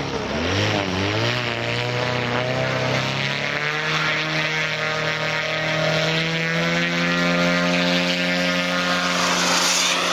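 Quarter-scale RC English Electric Lightning's twin JetCat P120 gas turbines running as it flies past. The sound is a continuous roar whose pitch wavers in the first second or two, then glides slowly, with a sweeping change near the end as it passes.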